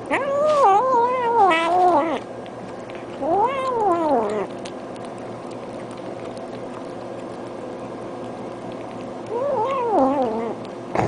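Hungry domestic cat meowing three times. The first meow is long and wavering, about two seconds. The second is shorter and rises then falls. The third comes near the end.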